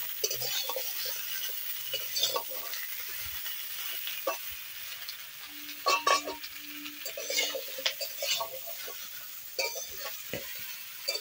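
Cut vegetables sizzling as they fry lightly in oil in a metal karahi. A metal spatula scrapes and clinks against the pan several times as they are stirred, most sharply about six seconds in.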